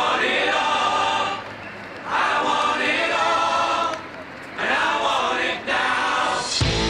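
Music: a choir singing in phrases with short breaks between them. A band with electric guitar comes in near the end.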